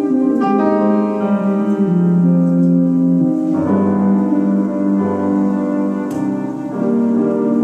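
Live ensemble music led by grand piano chords, with an archtop electric guitar and a small flute-like wind instrument. New chords come in about half a second in, around three and a half seconds, and just after six seconds.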